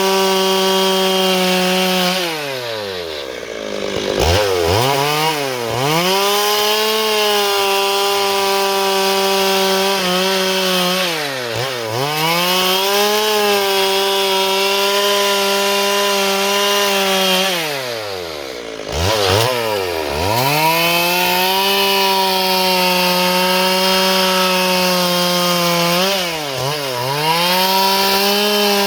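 Stihl MS 382 two-stroke chainsaw running at high revs while cutting dry eucalyptus. Its pitch drops sharply and climbs back several times, at the start, around the middle and near the end.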